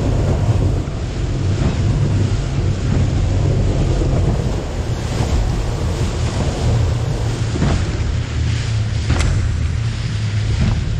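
Yamaha V Max SHO 115 outboard running steadily at speed, the boat planing, with wind buffeting the microphone and water rushing past the hull. A couple of sharp knocks come about eight and nine seconds in.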